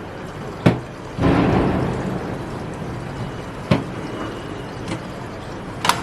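Sharp clicks and knocks from someone handling a washing machine, with a sudden rush of noise about a second in that fades over a second or so.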